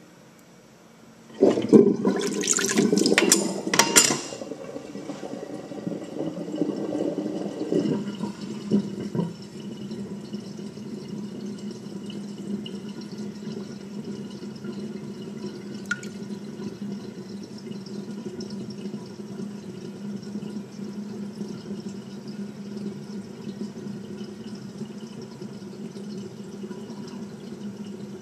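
Kitchen sink drain opening as the stopper is lifted. A loud gurgling rush of water with sharp clattering clicks starts about a second and a half in and lasts a few seconds. It settles into a steady sound of water running down the drain, with a low hum.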